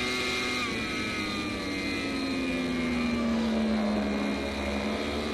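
A 1,000 cc superbike engine runs hard at high revs, held in one gear with no gearshifts. Its pitch sinks gradually as the rider stays in second gear through this section of the track.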